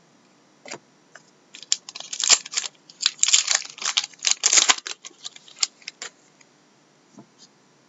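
Trading cards being flicked and slid against one another by hand: a quick run of crisp clicks and rustles that starts a little over a second in and stops about six seconds in.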